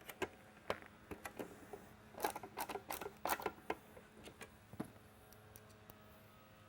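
Light clicks and taps of plastic parts and wiring being handled as a strobe head assembly is seated on a mini lightbar's base, with a quick cluster of sharper clicks between about two and four seconds in.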